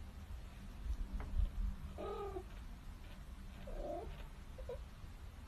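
A cat giving a few faint, short mews, about two seconds in and again about four seconds in, between louder yowls.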